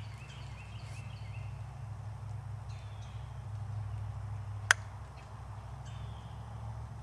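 A single sharp pop from a .22 Diana Stormrider pre-charged pneumatic air rifle being fired, about two-thirds of the way in. A few faint high chirping calls come near the start.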